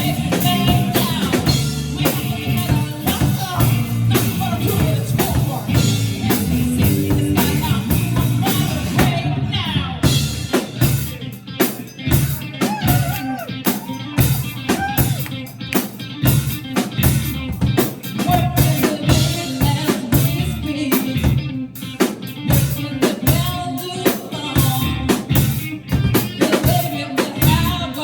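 A live band playing an upbeat song with drum kit and singing. About ten seconds in, the full sound drops back to sharper, more separated drum hits before building again.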